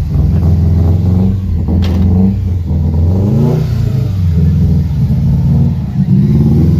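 Subaru Impreza WRX's turbocharged flat-four engine and exhaust, a loud low rumble as the car creeps past, the revs rising and falling a little around the middle.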